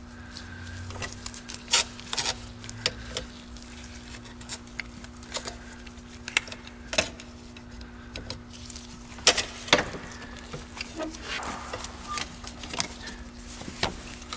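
Hose clamp pliers and hands working a rubber transmission cooler hose off its line at the radiator: scattered clicks and small knocks of tool on metal, louder about two seconds and about ten seconds in, over a faint steady hum.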